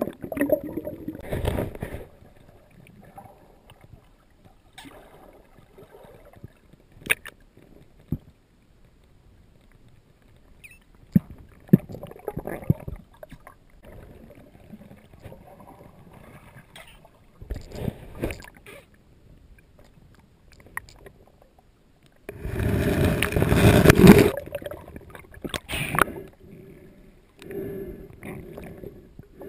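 Water sloshing and gurgling against a GoPro Hero2 camera sealed in its underwater housing as it moves through a lake, coming in bursts every few seconds; the loudest burst comes about two-thirds of the way in and lasts about two seconds.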